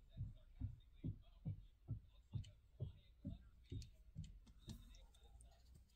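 Soft low thumps in a steady rhythm, a little over two a second, growing weaker near the end, with a few faint light clicks.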